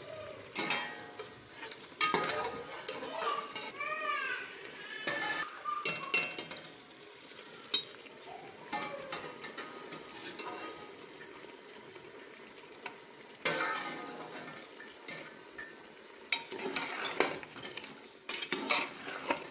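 A metal spatula stirring chicken pieces and pumpkin chunks in masala in an aluminium pot, scraping and knocking against the pot, while the masala sizzles as it fries.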